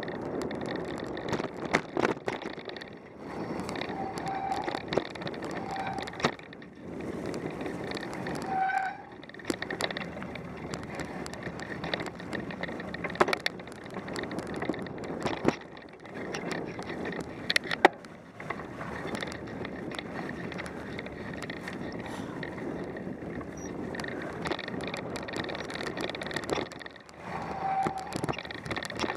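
Mountain bike riding a forest singletrack: tyres rolling over dry leaves and a light dusting of snow, with the bike rattling. There are sharp knocks over bumps and a few short squeaks.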